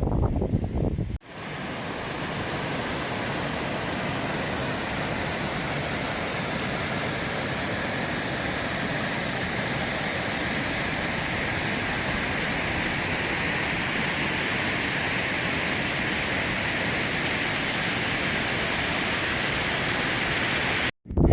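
Wind buffeting the microphone for about a second, then, after a sudden cut, a steady, even rushing hiss of running water that holds unchanged until it cuts off just before the end.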